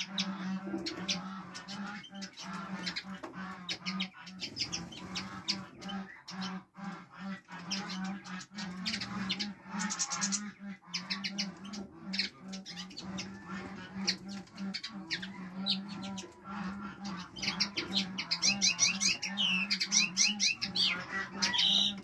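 Small finches chirping and calling in quick, overlapping notes. The calls grow busier and louder in the last few seconds, with fast runs of short high chirps. A steady low hum sits underneath.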